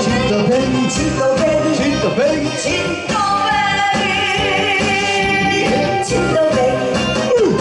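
A woman singing a Korean trot song live into a microphone over loud band backing music, holding one long note with vibrato from about three seconds in.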